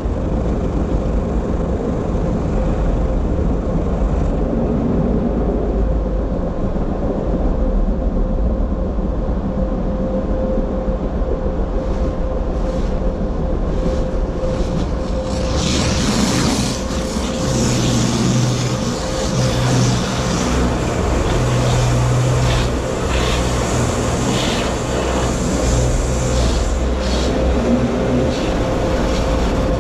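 Automatic car wash heard from inside the car's cabin: a low rumble of machinery and water, with spray hissing much harder on the body from about halfway through and regular low pulses as the equipment works over the car. Through it all the car's own warning tone sounds without a break, set off by the wash equipment touching and crowding the car.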